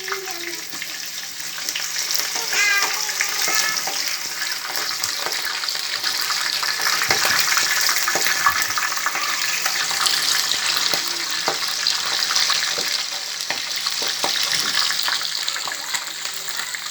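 Food frying in hot oil in a cooking pot: a steady sizzle with many small crackles, growing a little louder midway.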